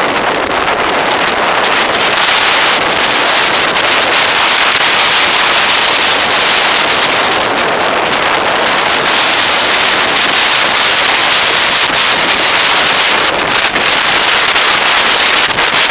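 Heavy wind noise buffeting the camera microphone on a motorcycle riding at road speed, a steady rush with some unsteady flutter near the end.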